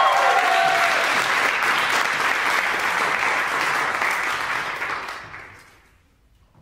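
Audience applauding, with the tail of a cheer in the first second; the clapping dies away about five to six seconds in.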